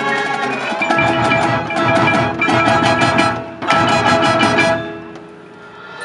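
Ensemble music with rapid repeated notes on ringing mallet percussion over drums. The playing stops about five seconds in and the sound rings away.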